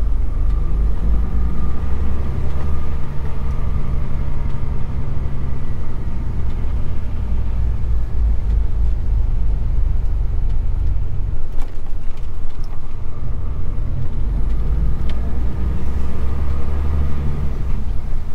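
Truck's diesel engine running with a steady low rumble.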